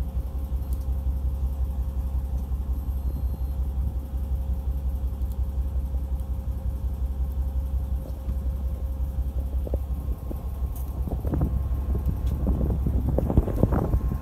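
A fishing boat's engine running with a steady low drone. A few louder irregular sounds join it near the end.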